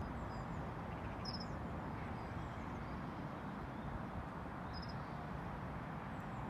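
Riverbank ambience: a steady low rush of outdoor noise, with two brief high bird chirps, about a second in and again near five seconds.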